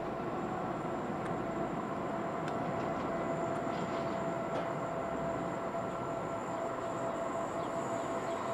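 An approaching train, a Trenitalia regional hauled by an E464 electric locomotive: a steady rumble with a faint held whine, slowly growing louder.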